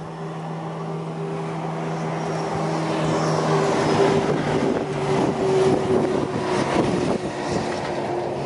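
An engine drones at a steady pitch, growing louder over the first few seconds and then holding.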